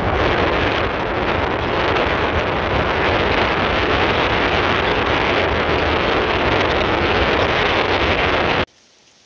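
Wind buffeting the microphone from a moving car, mixed with road noise: a loud, steady rush that cuts off suddenly near the end.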